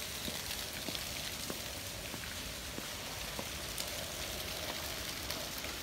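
Small bubbler fountain jets splashing steadily into a shallow pool, with scattered faint ticks.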